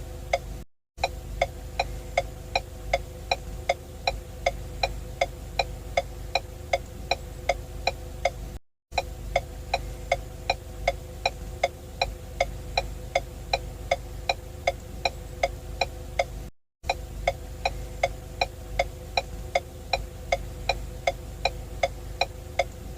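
Ford turn-signal indicator ticking at an even rate of about two to three clicks a second, over a steady low hum. The sound cuts out briefly three times, about eight seconds apart, where the loop restarts.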